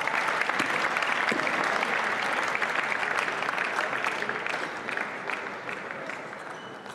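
Spectators applauding a game-winning point at a table tennis match. The applause is strongest in the first few seconds and dies away near the end.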